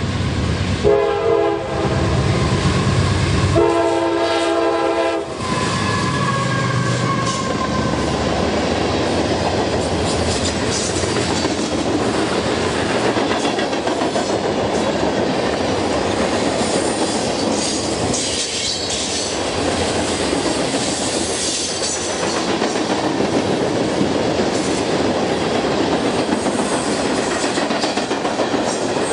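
A train sounds its horn in two blasts, the second longer, then runs past with a steady rumble and wheels clacking over the rail joints. A brief wheel squeal comes a few seconds after the horn.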